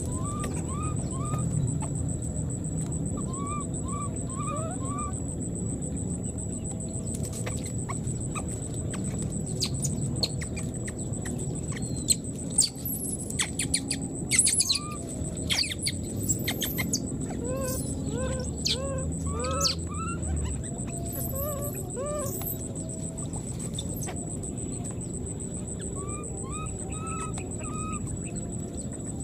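Animal calls: short arched calls repeated in runs of three or four, with a louder burst of shrill cries about halfway through. A faint steady high whine sits under them.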